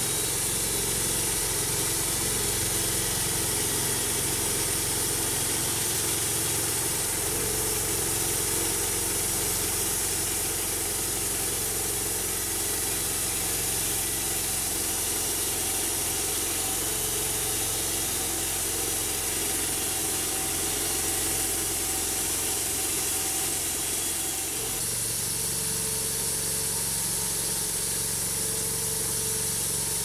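Homemade band sawmill cutting through a dead spruce log: the engine runs steadily under load while the band blade hisses through the wood. The engine note shifts slightly near the end.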